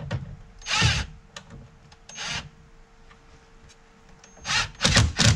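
Cordless drill driving screws into a car door's speaker mount in short bursts: one about a second in, another after two seconds, then three quick ones near the end.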